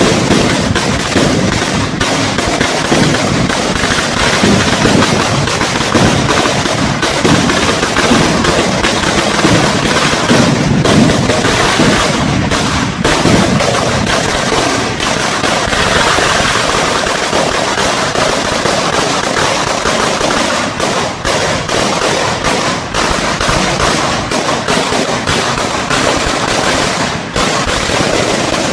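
A 10,000-wala string of bijli firecrackers going off in an unbroken, rapid crackle of small bangs, like machine-gun fire.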